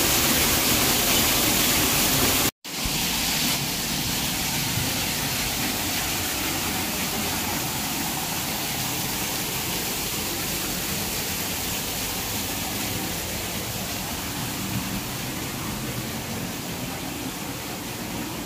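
Artificial garden waterfall splashing into a shallow pool: a steady rush of falling water. The sound cuts out for an instant about two and a half seconds in, comes back a little quieter and slowly fades.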